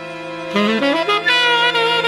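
Jazz orchestra recording with a saxophone carrying a melodic line over the band. The ensemble grows louder and fuller about half a second in.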